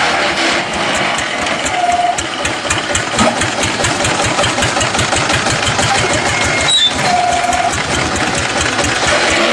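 LY6-30 mobile block-making machine running, a rapid, even mechanical clatter from its vibrating mould. Two short steady tones sound over it, one about two seconds in and one near the end.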